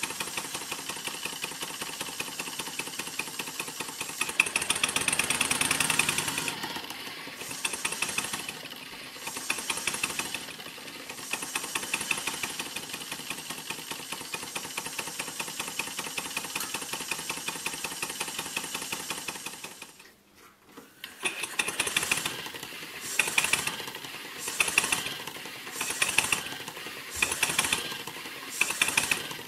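Model Chiltern steam engine running fast with a rapid mechanical clatter. About two-thirds through it nearly dies away, then returns swelling and fading roughly once a second. This surging is the engine hunting as its centrifugal flyball governor opens and closes the steam valve: speed oscillations caused by starting the engine too quickly.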